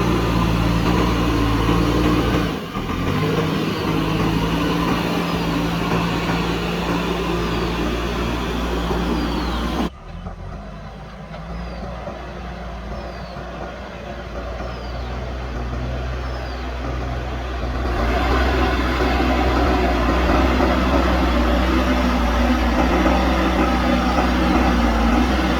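Diesel engine of a JCB backhoe loader running steadily. The sound drops abruptly about ten seconds in and comes back up to full loudness around eighteen seconds.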